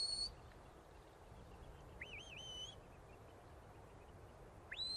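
Shepherd's whistle commands to a working sheepdog: a long, steady high whistle that cuts off just after the start, a fainter warbling whistle about two seconds in, and a rising whistle that starts near the end. Between them there is only faint open-field background.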